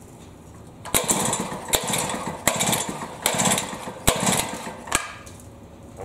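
Jiffy ice auger's Tecumseh two-stroke engine being pull-started: several rasping yanks of the recoil starter from about a second in, each with sharp clicks, the engine turning over but not catching. The engine is probably flooded.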